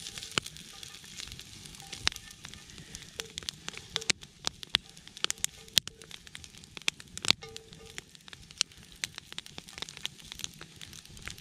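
Moose meat and fat frying in a cast-iron skillet over a wood fire, sizzling steadily with many sharp pops and crackles as the fat renders.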